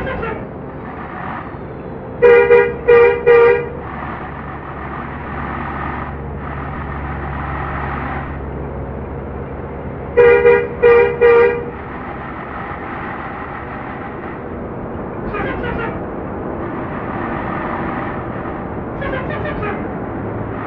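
Bus telolet horn sounding loud three-note bursts, twice, about 2 and 10 seconds in, with fainter horn calls later. Steady traffic rumble runs underneath.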